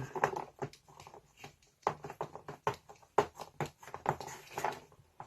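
Irregular small clicks and taps as a flexible-shaft extension is pushed into and screwed onto a rotary multi-tool.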